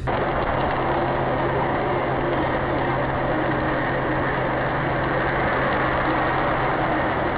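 A vehicle driving: a steady engine hum under even road and cabin noise, with no impact.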